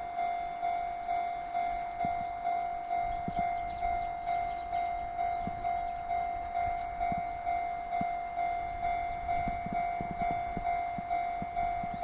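Japanese railway level-crossing alarm ringing, an electronic bell struck about twice a second in an even, unbroken rhythm. It signals an approaching train.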